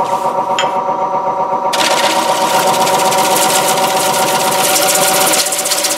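Wood lathe running with a steady motor whine as a gouge cuts the face of a spinning basswood platter. About two seconds in the cut bites harder and a loud steady hiss of shavings comes over the whine.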